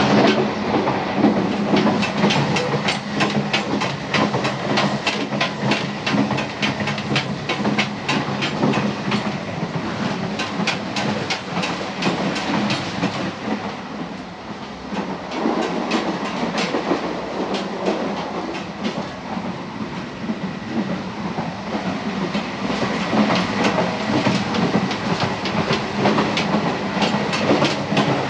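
Train running along the track, its wheels clicking over rail joints in a fast, regular clickety-clack over a steady rumble and low hum. The sound eases for a moment about halfway through, then carries on.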